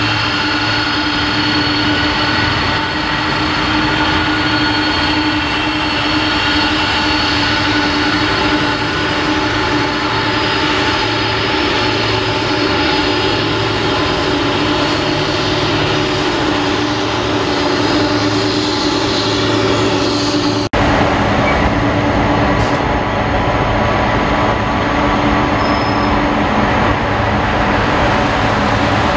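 Four jet engines of a Boeing 747-400 running at taxi power, a steady rumble with several high, steady whining tones. About two-thirds of the way through the sound drops out for an instant at an edit, then resumes a little louder and rougher.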